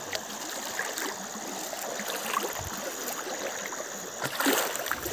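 River water running and trickling steadily, with a louder burst of splashing about four and a half seconds in.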